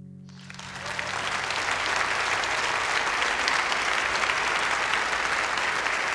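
Audience applauding at the end of a song, starting about half a second in and swelling to a steady, full clapping within a second or so, as the last acoustic guitar chord fades out underneath.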